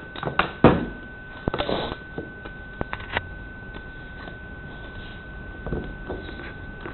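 Metal scraper blade working under an ABS print on the UPBOX 3D printer's perforated base plate, prising it off: scattered scrapes and clicks, most in the first second and again around three seconds in, then quieter. A steady thin high tone runs underneath throughout.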